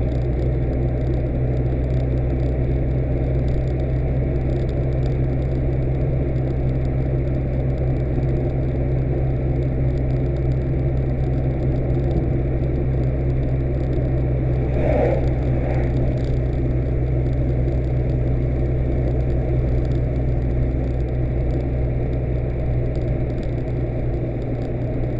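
A car driving along steadily, its engine and road noise making a constant low drone. A brief higher sound comes about fifteen seconds in.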